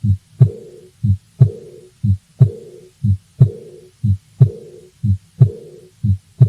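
Heart sounds of mild aortic regurgitation: paired lub-dub beats about once a second, each second heart sound followed by a soft early diastolic murmur that fades away (decrescendo).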